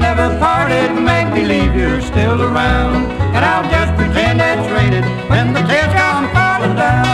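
Bluegrass string band playing an instrumental break with no singing, plucked strings and sliding melody notes over a bass line that steps from note to note.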